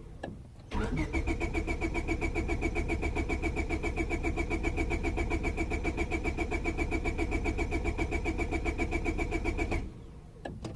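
Starter cranking the 2000 Honda Civic's 1.6-litre four-cylinder engine with a steady rapid rhythm for about nine seconds, the engine turning over without catching, then stopping. It is a no-start with weak, intermittent spark while fuel can be smelled.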